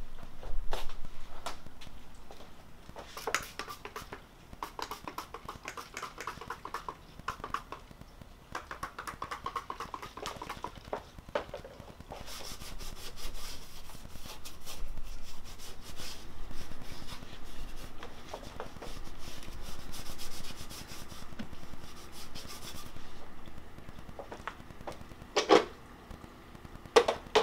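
Cloth wiping and rubbing over the car body around the taillight opening, in long scrubbing stretches, with scattered light knocks and clicks and a sharper knock near the end.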